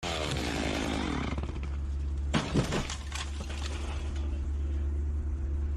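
Chainsaw felling a tree: the saw's whine falls away in the first second and a half, then a short cracking, breaking crash comes about two and a half seconds in, over a steady low drone.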